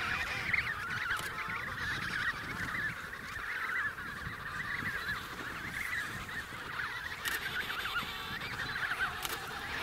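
Emperor penguin colony calling: many overlapping warbling calls at once, a dense chorus that never pauses.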